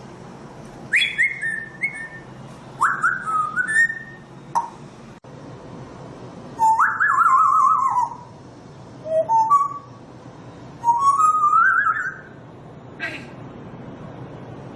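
African grey parrot whistling about five short phrases of clear sliding notes. One holds a fast warbling trill, and another climbs in a stepwise run of rising notes.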